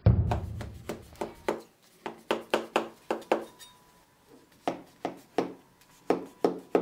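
Kitchen knife slicing through stacked sheets of dry yufka pastry in a round metal baking tray. Each stroke makes a crisp tick, about three a second in quick runs, with a short pause about four seconds in.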